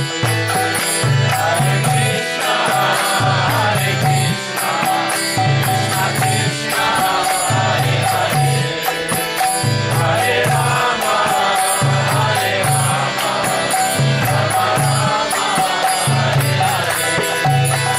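Kirtan: voices chanting a mantra to a steady, repeating low drum beat and rapidly ticking hand cymbals, over sustained held tones.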